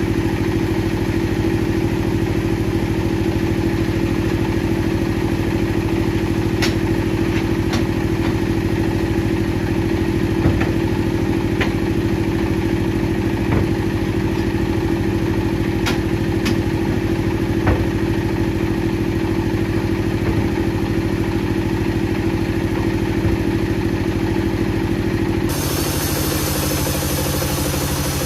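Heavy wood-processing machinery running steadily, an engine-like hum with a few sharp clicks and knocks. About 25 seconds in it changes abruptly to a different machine running.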